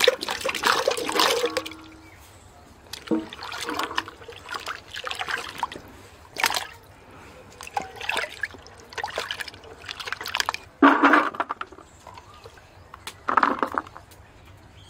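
Sliced radish tipped from a bowl into a steel bucket of water with a splash, then hands swishing the radish slices, green chillies and tomatoes in the water: repeated splashes and sloshes, with a loud one about eleven seconds in.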